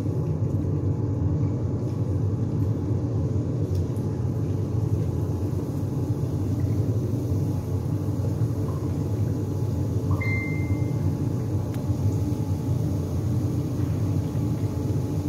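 Doughnuts deep-frying in a stainless steel pot of oil on a gas stove: a steady low rumble with little high sizzle. A brief high beep comes about ten seconds in.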